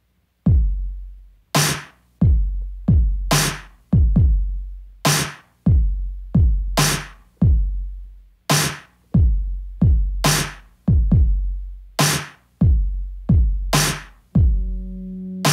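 Sparse drum beat of deep, booming kicks and sharp snare hits, each ringing out and dying away, roughly one hit every half second to a second. About a second before the end a steady low sustained note joins in under the beat.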